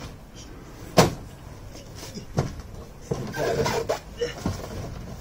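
Knocks and scuffs of a person climbing into a large hard-plastic car roof box (Thule Motion XT XXL): a sharp knock about a second in, a second knock a little later, then a scraping rustle as he slides inside.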